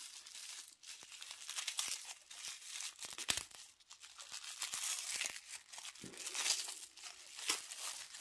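Crinkly packaging being torn open and unwrapped by hand, with irregular crackles and rustles.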